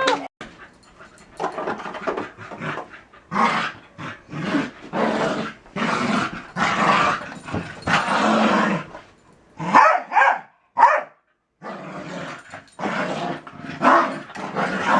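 Dogs growling in play during a tug of war over a stuffed toy: a run of growls, most about a second long, with a short pause a little past halfway.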